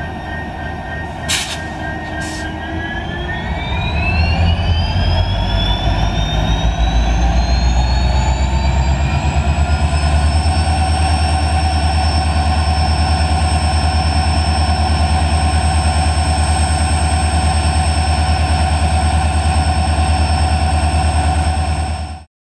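Diesel-hauled express train gathering speed. A heavy low rumble runs under a locomotive whine that rises in pitch for several seconds as the train accelerates, then holds steady at speed. Two sharp clicks sound shortly after the start.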